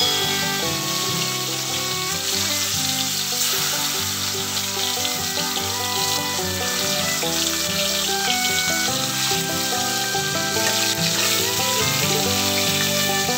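Shol (snakehead) fish steaks sizzling steadily as they fry in hot oil in a metal wok, under background music.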